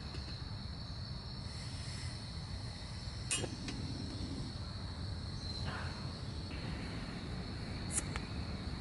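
A steady high insect trill over a low background hum. About three seconds in, a sharp click as the piezo igniter of a small canister gas stove lights the burner, and another small click near the end.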